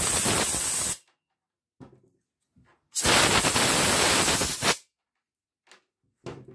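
Compressed-air blow gun blasting air through the oil holes of a chainsaw bar: two hissing blasts, the first cutting off about a second in and the second lasting nearly two seconds, with light knocks of the bar being handled in between.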